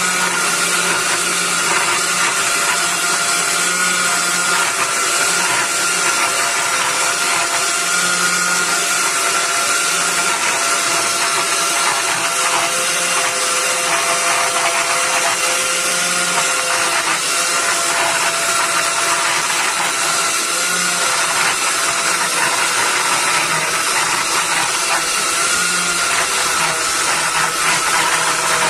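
Countertop blender motor running steadily with a constant whine, churning a thick cake batter while flour is spooned into it.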